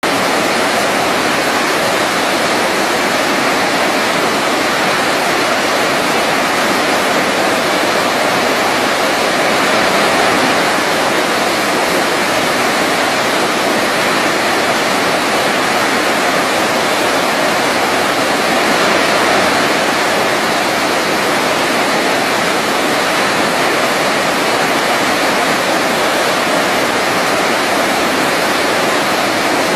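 Waterfall: a steady, dense rush of falling water, with slight swells now and then.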